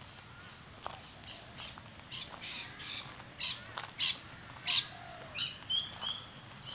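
Bird giving a series of harsh, squawking calls, about two a second, growing louder to a peak past the middle, then a few shorter, clearer notes near the end.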